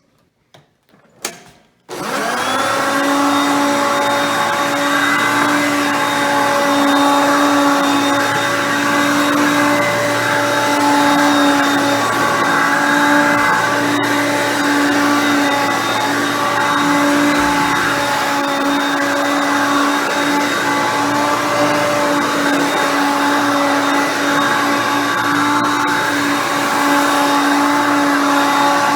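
Hoover Concept Two upright vacuum cleaner, 5.6-amp motor, switched on about two seconds in just after a faint click, then running steadily with a constant pitched motor hum.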